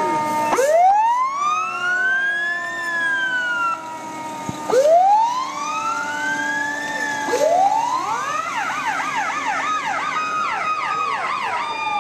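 Fire truck siren sounding in the parade: three wails that each rise over about two seconds and fall back, the third overlapped by a fast warbling yelp, with a steadier siren tone sliding slowly down underneath.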